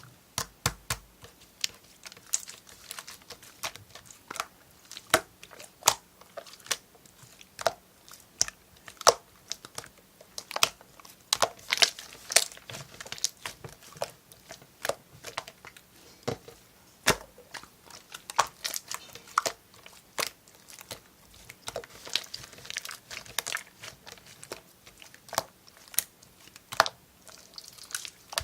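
Slime being squeezed and poked by hand, giving irregular sharp sticky clicks and pops.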